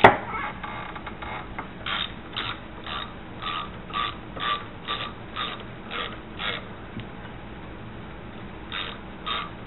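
Hand socket ratchet loosening a bolt, its pawl clicking in short runs about twice a second on each back-swing, with a pause of about two seconds near the end. A sharp clack right at the start.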